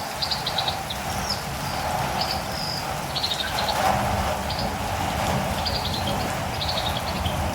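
Steady rain falling, over which a catirumbava calls again and again in short clusters of three to five quick, high chirps, about one cluster a second.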